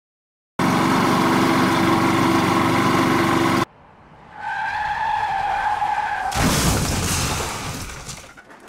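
A car horn blares steadily for about three seconds and cuts off sharply. After a short pause, tires squeal on a steady pitch for about two seconds, then give way to a loud skidding rush that dies away near the end.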